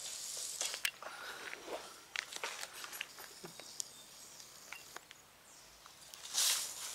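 Footsteps and rustling in dry rainforest leaf litter, with scattered twig snaps and clicks. Near the end comes a louder rustle of leaves as a hanging liana is grabbed and pulled on.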